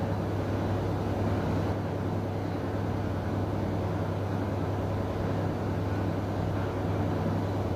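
Steady background noise: a low, even hum with a hiss over it, unchanging throughout.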